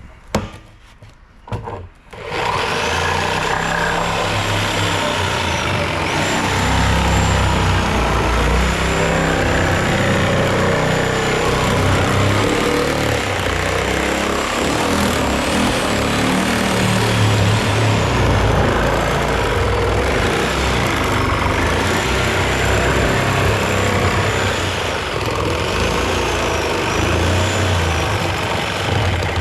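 A couple of clicks, then from about two seconds in a motor vehicle's engine running steadily, its pitch rising and falling a little as it drives, with a faint high whine over it.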